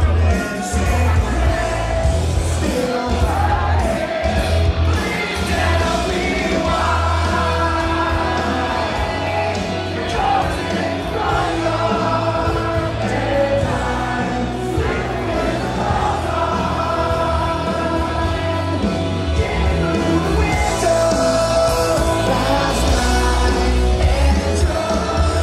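Music with singing over a heavy bass beat.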